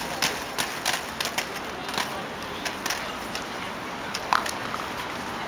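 Inline skates rolling on asphalt, their wheels and frames giving off irregular sharp clicks and clacks, one louder click near the end, over a steady outdoor background hiss.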